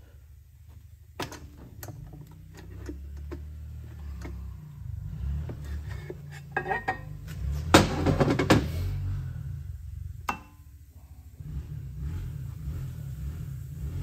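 Clinks and knocks of metal engine parts being handled on a workbench as the aluminium sump cover of a Briggs & Stratton engine comes off, with a burst of clattering about eight seconds in. A low steady hum sits underneath.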